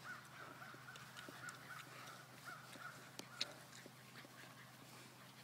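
Faint, thin whining from a bullmastiff puppy, wavering for about three seconds and then stopping, with small clicks and rustles of puppies moving in the grass.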